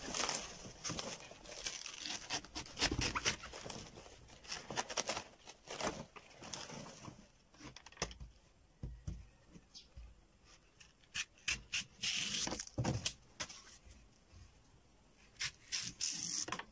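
A knife cutting and splitting a green banana leaf midrib, with crisp tearing and rustling as the leaf is stripped and pulled apart, in irregular bursts with short pauses between.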